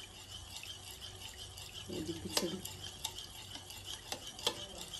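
Steel spoon stirring watery arrowroot powder (koova podi) in a plate, a soft scraping with a few sharp clinks of the spoon against the plate.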